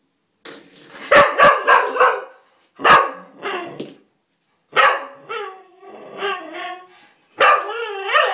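English cocker spaniel puppy barking and whining, excited and frustrated, wanting to play with a door-stop spring. A quick run of barks comes first, then single barks with wavering whining cries between them.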